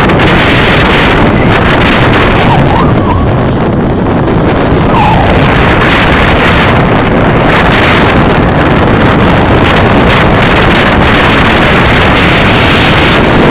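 Strong wind buffeting the microphone on a sailing yacht, a loud, steady rush with water noise under it.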